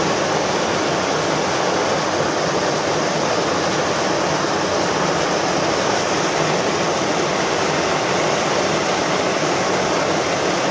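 Steady rush of flowing river water, an even hiss with no distinct splashes or other events.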